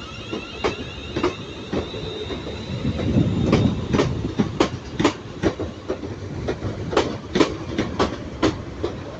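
A train rolling through the station, its wheels clacking over rail joints in an uneven run of sharp clicks, often in pairs, over a steady rumble. A faint high whine fades out in the first few seconds.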